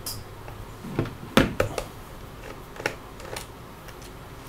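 A few short clicks and light taps of a screwdriver and fingers working small screws out of a laptop's hard-drive bay, the sharpest about a second and a half in.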